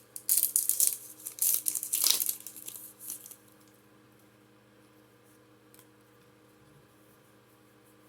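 Foil Pokémon booster pack being torn open and crinkled, several crackling tears over about three seconds, then only quiet room tone with a faint steady hum.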